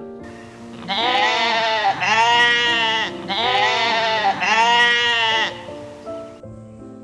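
A sheep bleating four times in quick succession, each call about a second long and dropping in pitch at its end, over background music.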